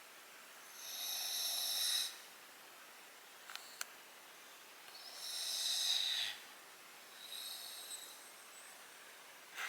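English bulldog snoring while awake: three long, hissy snoring breaths of about a second each, the last one fainter, with two small clicks between them.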